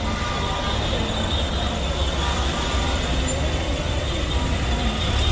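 Street noise beside a walking crowd: a steady low rumble of vehicle engines, with a faint steady high-pitched whine and the distant murmur of many voices.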